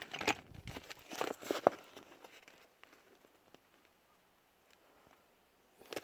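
Metal hand tools clicking and knocking as they are handled in a steel tool box drawer, a cluster of sharp clicks and knocks over the first two seconds, then quiet, then a brief rattle near the end.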